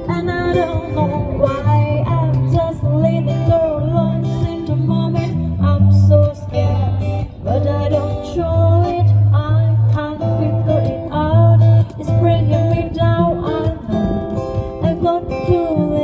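Live band playing an instrumental passage between sung lines: guitar over a bass line of steady low notes, with a melodic lead that slides between notes.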